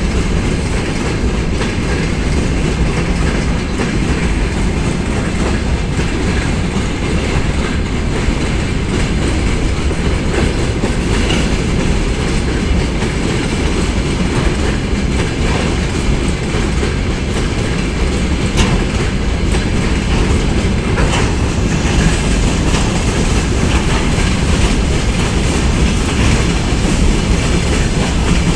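Freight train rolling past, with steady wheel-on-rail noise from the wagons that stays even throughout.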